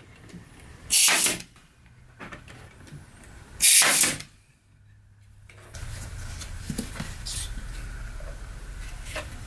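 Pneumatic brad nailer firing twice, about a second in and again a little under three seconds later, each shot a sharp crack with a short hiss of air as it drives a brad into hardwood. A steady low hum follows in the second half.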